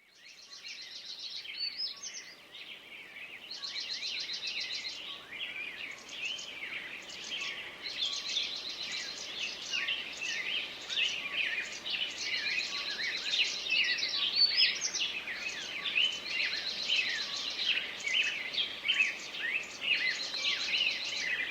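Several small songbirds singing and chirping at once in a dense garden chorus, with a fast high trill returning every few seconds. The chorus fades in at the start.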